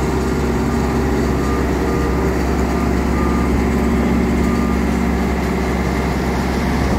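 Travel lift's engine running steadily with a deep hum, with short faint high beeps now and then.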